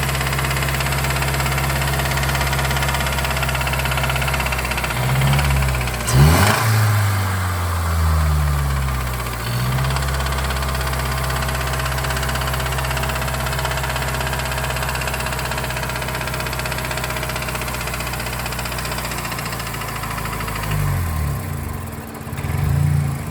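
Mazdaspeed3's 2.3-litre turbocharged four-cylinder engine idling with a rod knock, revved up and back down about five seconds in and blipped again near the end.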